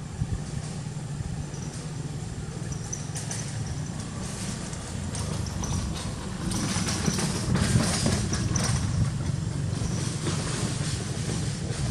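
Wind buffeting the microphone, a steady low rumble that grows louder about halfway through, with a few faint high chirps in the middle.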